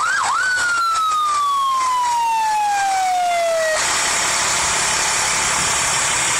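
Fire truck siren yelping in quick rising sweeps, then switched to one long falling tone that drops steadily in pitch for about three seconds and cuts off suddenly. A steady rushing noise from the truck's running engine takes over after it.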